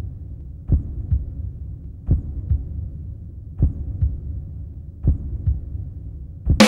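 Heartbeat sound effect: paired low thumps about every second and a half over a low hum. Loud rock music with drums cuts in near the end.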